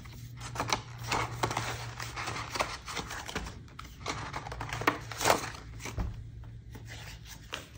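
Paper banknotes and cash-binder envelope pages rustling and crinkling as they are handled and turned, with irregular small clicks from the ring binder. A faint steady hum runs underneath.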